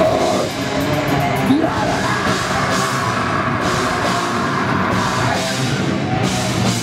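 Extreme metal band playing live: loud, distorted bass and guitar over a pounding drum kit.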